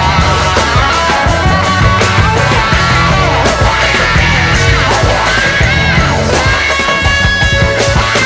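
Loud background rock music with a steady drum beat.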